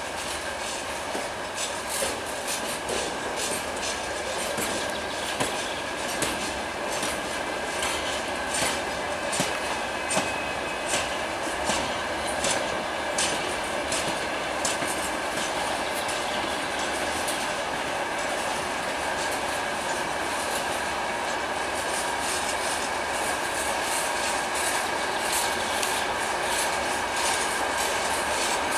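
Freight train of open gondola wagons rolling past, the wheels clicking over rail joints with a thin steady squeal above the rumble. The clicking is frequent through the first half and thins out later.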